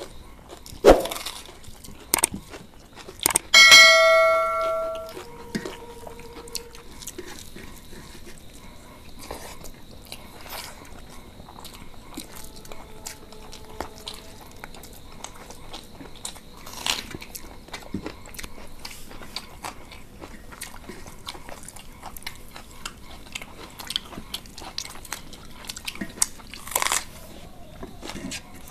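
Close-up eating sounds of rice and curry eaten by hand: chewing, and fingers clicking and scraping on metal plates. About four seconds in, a metal dish is knocked and rings out for over a second; there are other sharp knocks near the start and near the end.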